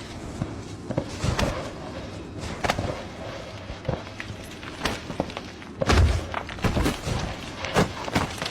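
A series of irregular thuds and knocks, the heaviest a deep thud about six seconds in.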